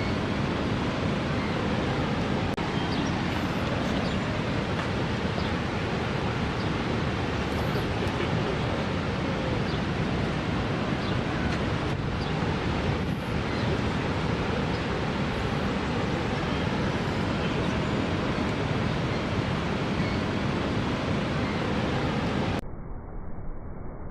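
Steady roar of Niagara Falls' water pounding down. About a second and a half before the end it cuts abruptly to a quieter, duller rumble.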